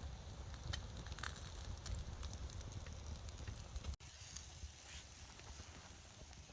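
Wood campfire crackling with scattered sharp pops over a low rumble. The rumble drops about four seconds in.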